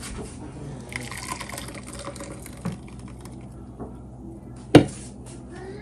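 Blended boiled-chili purée pouring from a plastic blender jar into a ceramic bowl, a steady liquid pour. A single sharp knock near the end.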